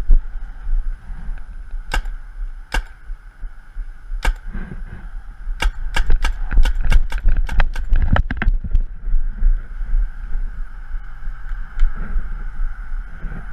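Paintball marker firing: three spaced single shots, then a rapid string of about four or five shots a second for some three seconds.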